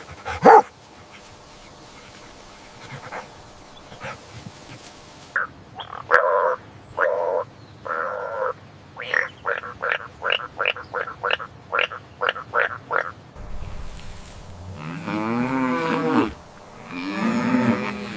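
A succession of animal calls. First a few short pitched calls, then a quick run of about a dozen short calls at roughly three a second, then two long, low pitched calls near the end.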